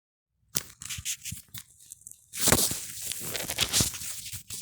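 Irregular clicks and scraping handling noises, with a louder rasping scrape about two and a half seconds in.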